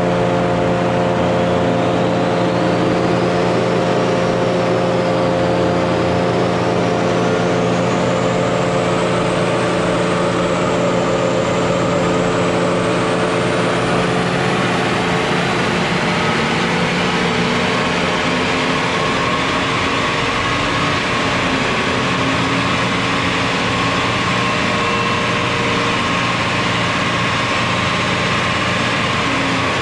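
A BMW N52 3.0-litre inline-six in a 328i running steadily on a chassis dyno, with a high whine that slowly climbs in pitch over the first twenty seconds.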